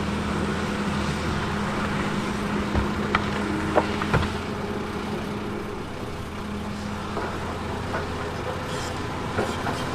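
Heavy earthmoving machine's diesel engine running steadily, with a few sharp knocks about three to four seconds in.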